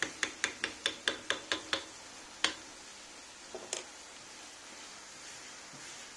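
Wooden spoon clicking against a frying pan about five times a second as chopped onions are stirred, then two single knocks. After that a faint steady sizzle of the onions frying in rendered pork fat.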